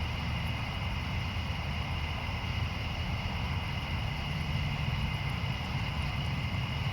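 Steady outdoor ambience: a low, even rumble with two steady high-pitched tones over it and no distinct thunderclap.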